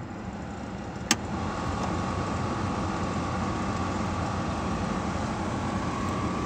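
Truck's dashboard heater/AC blower fan running. There is a click about a second in, then the fan's rushing air sound grows louder and holds steady with a thin whine over it.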